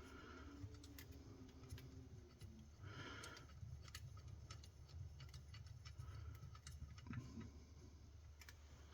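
Near silence with faint, scattered clicks and light handling sounds of small carburetor parts being worked on.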